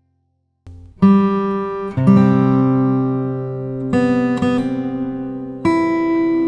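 Background music: an acoustic guitar strumming chords, starting about a second in after a brief silence, with a new chord struck every second or two and left to ring.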